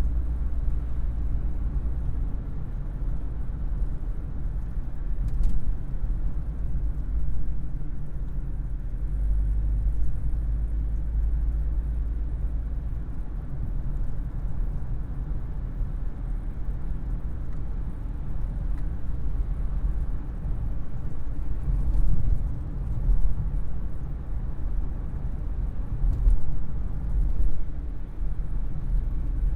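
Vauxhall Carlton car engine running with a low, continuous rumble. The level swells briefly a few times, around 5 seconds in and again in the last third.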